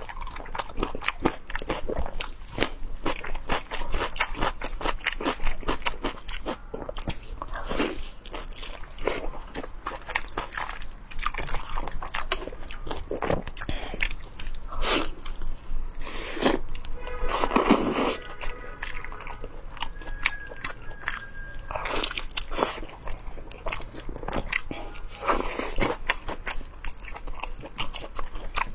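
Close-miked eating: a person biting and chewing food with a constant run of crunchy, crackly bites. There is one louder, longer crunch a little past the middle.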